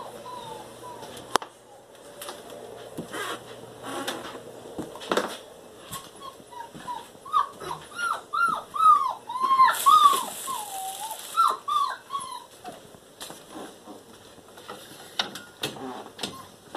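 A dog whining: a run of short, high whimpers that rise and fall in pitch, coming thickest in the middle of the stretch, with scattered clicks and knocks from handling.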